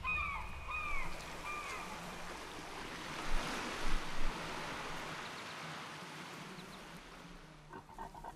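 Sea waves washing, with a seabird calling three times at the start; the surf swells twice in the middle, then fades.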